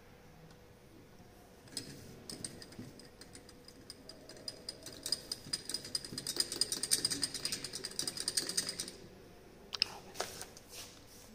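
Rapid light clinking of glass as the titration beaker, with the electrodes standing in it, is swirled to mix the solution; a few separate taps follow near the end.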